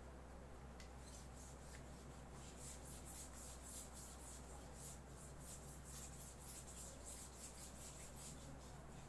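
Marker writing being wiped off a whiteboard: faint, quick back-and-forth rubbing strokes, about three a second, starting about a second in.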